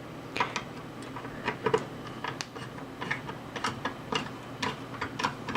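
Irregular light metallic clicks and ticks, a few each second, from a screwdriver turning the mounting screws of a CPU cooler, over a faint steady low hum.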